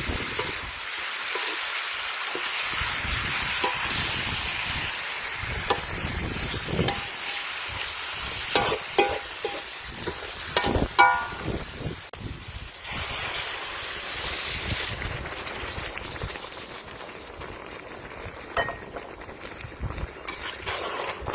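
Pork liver sizzling over a charcoal fire, a steady hiss that fades somewhat in the second half. Several sharp metal clinks of a cooking utensil come about 8 to 11 seconds in.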